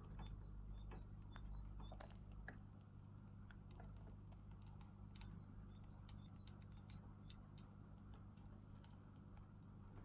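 Faint, scattered clicks and ticks of young pet rats moving about their cage, claws and small scrabbles on the cage floor and tubes, over a steady low hum.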